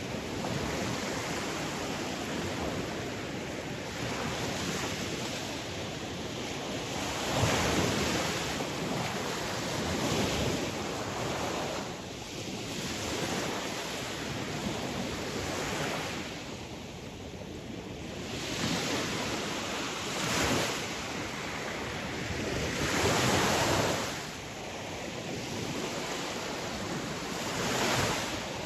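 Sea waves breaking on a shore: a continuous rushing wash that swells and falls, with a louder wave crashing every few seconds.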